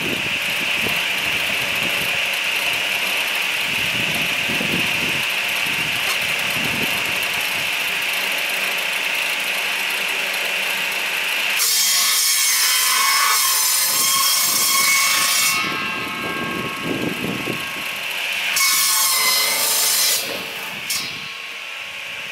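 Firewood saw-and-splitter machine running steadily, then its saw cutting through a log about halfway in for a few seconds, and cutting again, more briefly, near the end.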